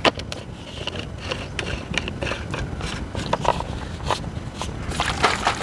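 Irregular clicks and scrapes of a plastic hand sprayer being handled while Epsom salt is mixed into its water, turning into a denser rattle near the end.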